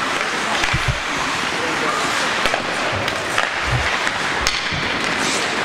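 Ice hockey play: skates scraping on the ice, with sharp clacks of sticks and puck scattered throughout, over a murmur of spectators' voices.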